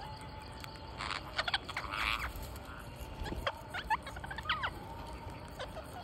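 Rose-ringed parakeets squawking: a harsh burst of calls about a second in, then shorter sliding chirps a couple of seconds later.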